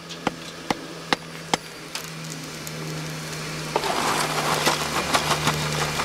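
Hand hammer striking a glowing bloomery-iron bloom held in tongs on a small anvil, compacting the fresh bloom: sharp knocks about every 0.4 s for the first two seconds, then louder, denser blows with crackling from about four seconds in. A steady low hum runs underneath from about two seconds in.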